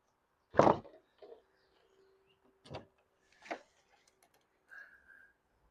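A few separate short knocks and clicks from handling the plastic roof-rack covers and trim pieces while they are popped off, the first about half a second in the loudest, with a short higher chirp-like sound near the end.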